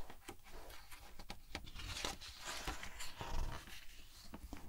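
A page of a picture book being turned close to the microphone: paper rustling and hands sliding over the page, with a scatter of light taps and a longer rustle about two seconds in.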